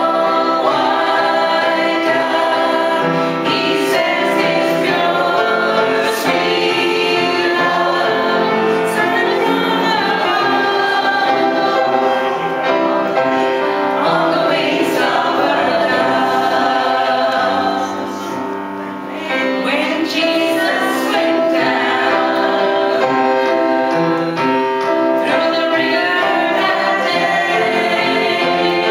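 Three women singing a gospel hymn together, with a short break between phrases about two-thirds of the way through.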